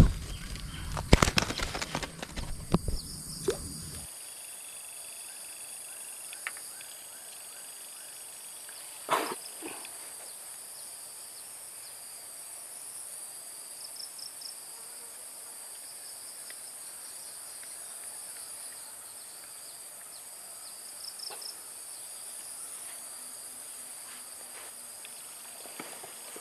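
Insects chirring steadily in high-pitched bands, with small pulsing chirps over the top. Irregular knocks and rustles fill the first few seconds, and a single sharp knock comes about nine seconds in.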